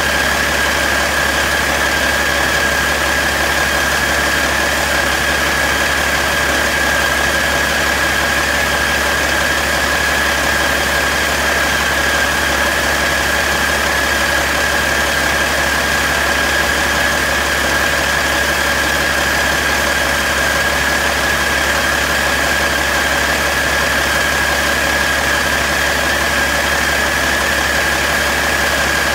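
Caterpillar C12 inline-six diesel engine running steadily at an even speed, with a steady high whine on top.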